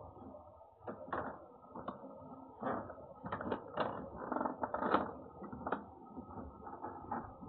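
A run of irregular clicks and scuffs, busiest in the middle, from a cat shifting about beside its metal food bowl, heard through a security camera's small microphone.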